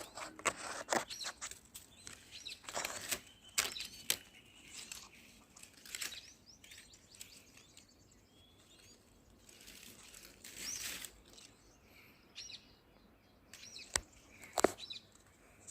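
Scattered rustles and sharp clicks, with a few faint, short bird chirps between them.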